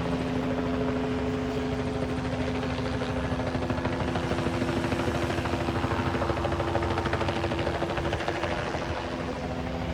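News helicopter hovering overhead: a steady rotor hum with a rapid, even chop.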